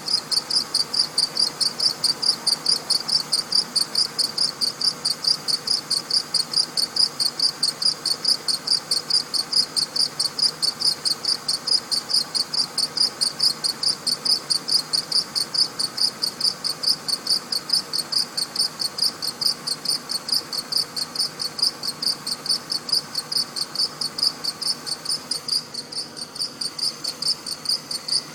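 Mercedes-Benz accessory drive belt and pulley squeaking just after a cold start: a high chirp repeating evenly several times a second over the quiet running engine. The owner takes it for a weak belt tensioner or idler pulley.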